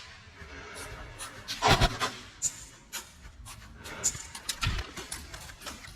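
An airsoft player breathing hard, with scattered sharp clicks and knocks and one louder burst a little under two seconds in.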